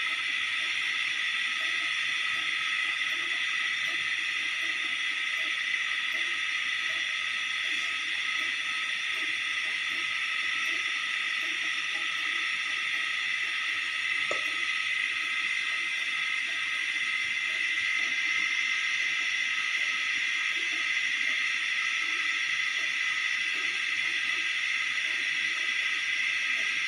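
Steady high-pitched hiss with several held tones in it, with a brief faint squeak about fourteen seconds in.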